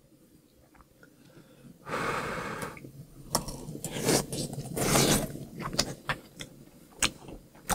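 A person eating close to the microphone: after about two seconds of near silence, a breathy sip or slurp, then chewing with small sharp clicks and a longer hiss of breath in the middle.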